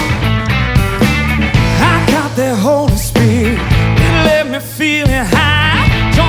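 Full rock band playing live, with bass and drums under a wavering, vibrato-laden lead melody line that comes in about two seconds in.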